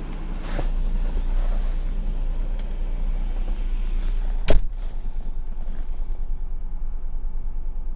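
Honda NSX running with a low, steady rumble, and one sharp knock about halfway through.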